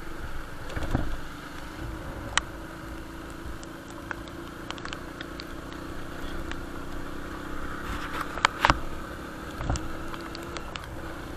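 Motorcycle engine running at a steady cruise, heard from the rider's seat with road and wind noise. An oncoming lorry passes about a second in, and a few sharp knocks come at about two and a half and eight and a half seconds.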